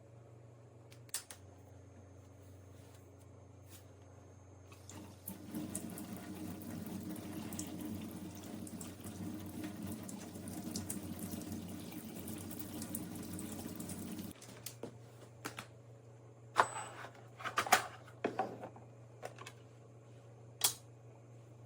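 De'Longhi Magnifica Start espresso machine dispensing, its pump running with liquid pouring for about nine seconds over a steady low hum. Then several sharp clicks and knocks.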